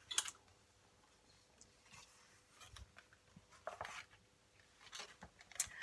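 Pages of a hardback picture book being turned by hand: quiet, with a few soft paper rustles and light taps, mostly in the second half.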